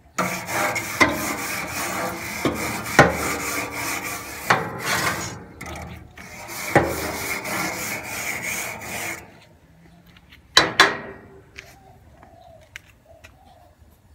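Grill brush scrubbing the metal grates of a gas barbecue: quick back-and-forth scraping strokes with sharp knocks as the brush head hits the bars. The scrubbing pauses briefly about halfway and stops about two-thirds of the way in, followed by a couple of sharp knocks.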